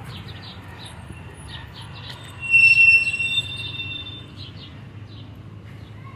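Street traffic hum, broken about two and a half seconds in by a loud high-pitched squeal that lasts about a second, a second higher tone trailing on briefly after it.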